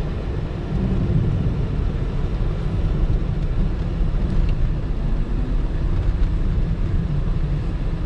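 Steady low rumble inside the cabin of a moving Honda N-BOX Turbo kei car: engine and tyre noise on a snow-covered highway.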